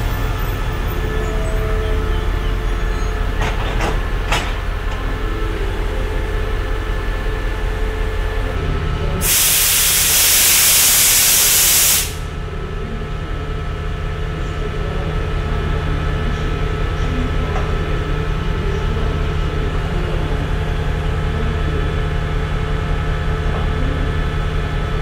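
Diesel train engine idling with a steady low hum. About nine seconds in, compressed air is vented with a loud hiss for about three seconds, then cuts off sharply.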